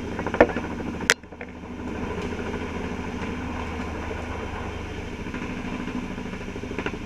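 Helicopter engine and rotor running steadily overhead, a fast, even beating throughout. A sharp click about a second in.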